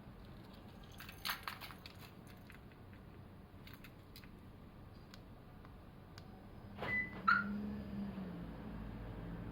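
Keys and key fob rattling with a few clicks, then a short beep and a brief louder chirp from the aftermarket Viper car alarm about seven seconds in, followed by a low steady hum.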